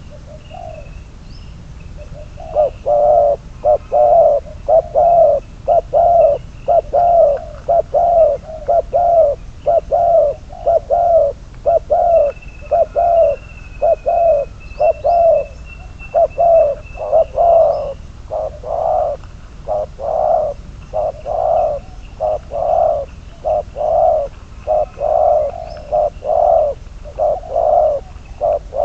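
Spotted dove cooing: a long, unbroken run of low coos, about two a second, starting a couple of seconds in.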